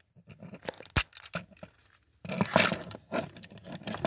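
Plastic clicks and scraping from a Transformers action figure being handled while its guns are fitted into its hands: a sharp click about a second in, then denser rustling over the last two seconds.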